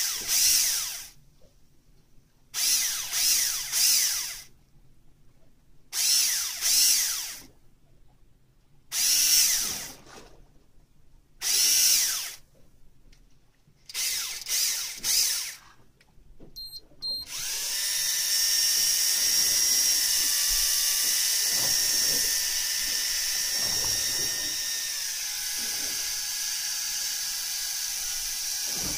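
Electric fishing reel's motor running in short bursts of about a second, some in quick pairs or threes, with pauses between. Then, a little past halfway, it runs continuously with a steady whine, its pitch dropping slightly near the end.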